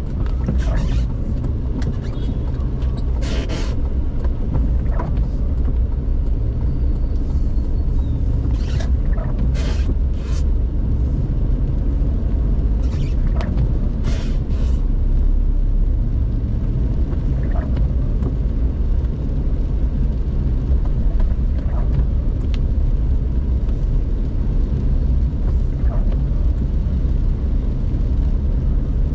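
Steady low rumble of a car's engine and tyres on a wet road, heard from inside the cabin while driving in rain, with several short sharp sounds from the street now and then.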